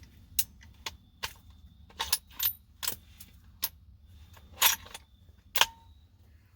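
Sharp metal clicks and clacks of a hunting gun's action being worked by hand while it is giving trouble, about ten in all, with the two loudest clacks close together past the middle.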